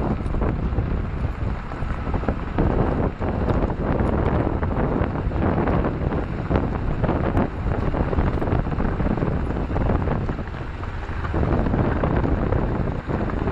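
Wind buffeting the microphone over the running noise of a moving train, with scattered knocks throughout.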